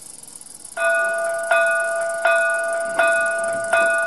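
The model steam locomotive's sound decoder ringing its bell. It starts under a second in, after a faint hiss, and gives five even strokes about three-quarters of a second apart, each ringing on until the next.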